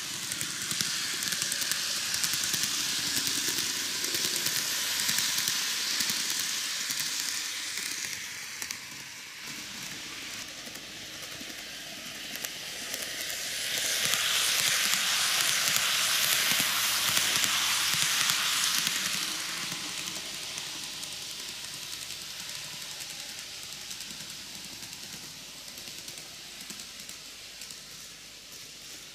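N-gauge model train (TOMIX Kintetsu 80000 series Hinotori) running on its track: a hissing rattle of small wheels on rail and the motor. It swells loudest about halfway through as the train passes close by, then fades.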